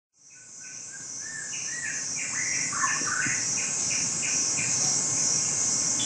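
Cicada buzzing: a steady high-pitched drone that fades in over the first second, with a bird chirping short repeated notes over it.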